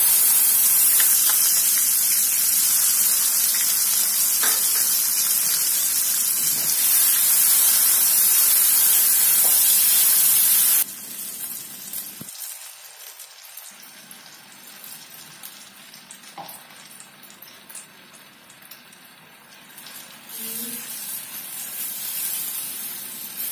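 Ground masala paste frying in hot oil in a kadhai, sizzling loudly and steadily. About eleven seconds in the sizzle cuts off abruptly, leaving quieter scraping and stirring of the thick paste with a silicone spatula.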